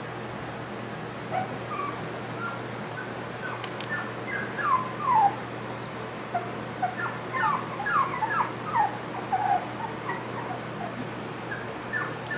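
Four-week-old cockapoo puppies whimpering and yipping: a string of short, high squeaks that fall in pitch, coming thickest about a third of the way in and again past the middle.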